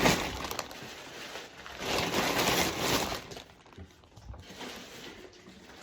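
Rustling of packaging as items are handled and put back in, in two spells of a second or so each.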